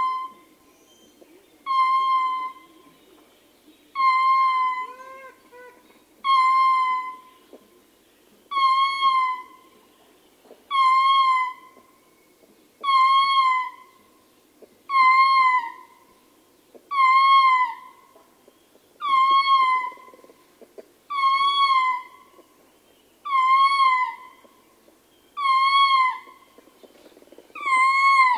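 Male ring-tailed lemur howling: a steady series of loud, pitched calls, each about a second long and ending in a short dip in pitch, repeated about every two seconds.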